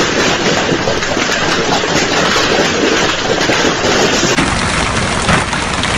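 Large hailstones pelting down hard: a dense, continuous clatter of many impacts. About four seconds in the sound takes on a deeper, heavier rumble.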